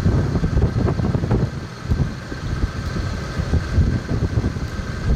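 Gusty wind buffeting the microphone: a loud low rumble that rises and falls irregularly, with a faint steady high hum underneath.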